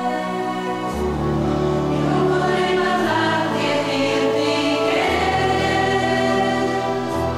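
Polyphonic church choir singing a slow liturgical song in held chords, the bass moving to a new note about every two seconds.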